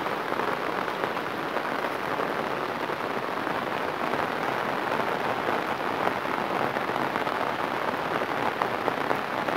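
Heavy rain falling steadily onto floodwater, a dense, even hiss of drops on the water's surface.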